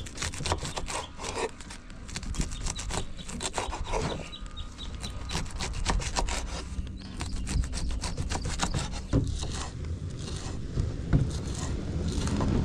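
Rapid, repeated rasping scrapes that go on steadily with a few short lulls.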